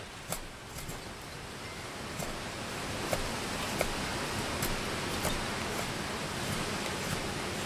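Steady hiss of wind and rain, with short sharp clicks about once a second as a Schrade SCHF 42D knife takes carving strokes through spalted wood.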